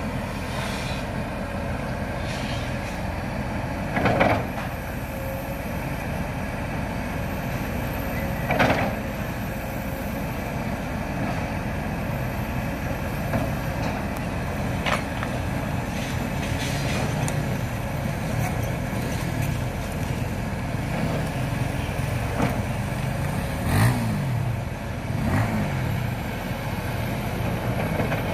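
Heavy earthmoving machinery, a crawler excavator among it, running with a steady diesel rumble, broken by several sharp metallic clanks spread through.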